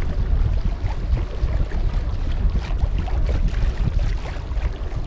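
Wind buffeting the microphone in a loud, fluttering low rumble, over water splashing against a moving kayak's hull.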